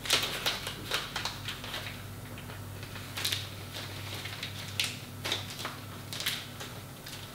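Plastic packet of sliced cured meat crinkling and crackling in the hands as it is pulled open, in irregular crackles with a few sharper clicks.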